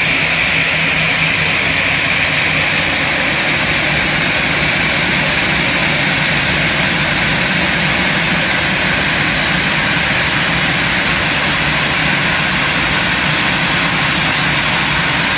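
Airbus A320-family airliner's twin turbofan engines running at low taxi thrust close by: a steady jet whine with a thin high tone over an even rush.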